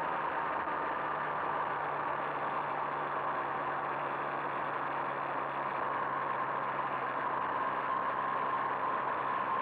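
Two-stroke moped engine running at a steady speed with an even, unchanging pitch while riding along a gravel road.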